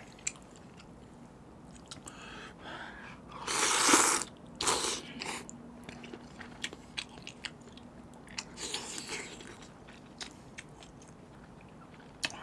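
A person eating spicy seafood noodles close to the microphone: wet chewing with many small clicks. There are louder rushes of noise about three and a half seconds in (the loudest), again just after, and near nine seconds.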